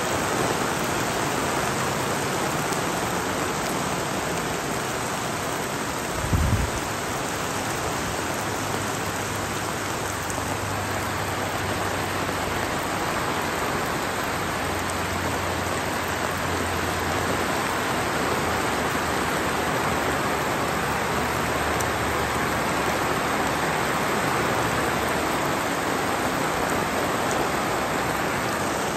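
Heavy rain falling steadily. About six seconds in there is a brief low thump, and a faint low rumble runs for several seconds after it.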